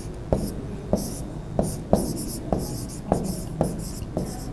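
Pen stylus tapping and scratching on the screen of an interactive display while drawing: a sharp tap roughly every half second, with short scratchy strokes between.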